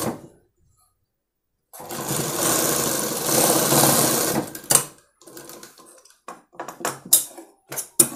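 Domestic straight-stitch sewing machine running a seam for about three seconds, then stopping. After that come short clicks and snips as the fabric is handled and the thread is cut with scissors.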